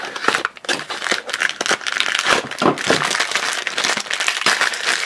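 A mini-figure blind box being opened by hand: the cardboard box pulled apart and its blue plastic inner bag crinkling and crackling as it is handled and torn, a continuous run of small crackles.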